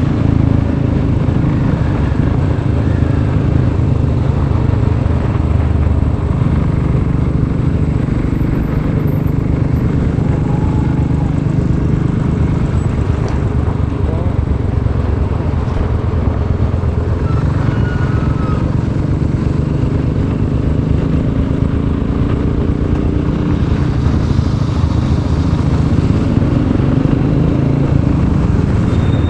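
Royal Enfield Classic 500's single-cylinder engine running while the bike is ridden, a steady low engine note that holds through without pauses.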